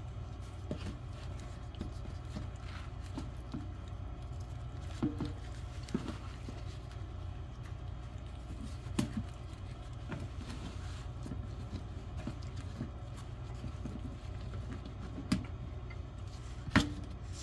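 Hands folding and rolling a filled flour tortilla on a plastic tray: soft handling sounds and scattered light taps, with a sharper tap near the end. A steady low hum runs underneath.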